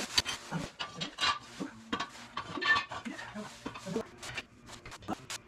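Irregular metallic clinks, knocks and scrapes as the jack under the trike is let down a little at a time.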